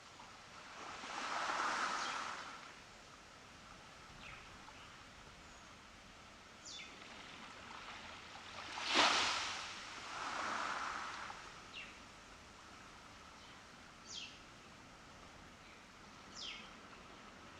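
Small waves breaking on a beach in slow, uneven swells, with one sharper crash about nine seconds in. A bird gives short calls that fall quickly in pitch, several times.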